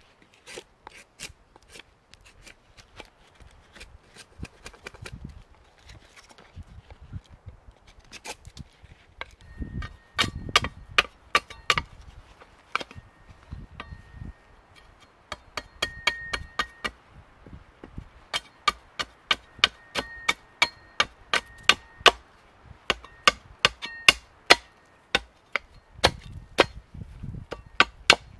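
Small hatchet chopping birch kindling: a run of sharp strikes, about one or two a second, each with a brief metallic ring. They are faint and sparse for the first several seconds and get louder and closer together about ten seconds in.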